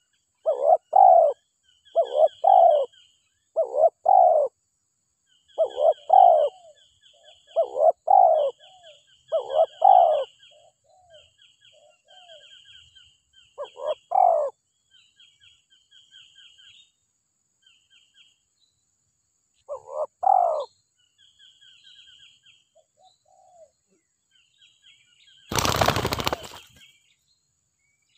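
Spotted dove cooing: repeated groups of two and three low coos, frequent through the first half and sparser after, over thin high chirping of small birds. A brief rustling burst near the end.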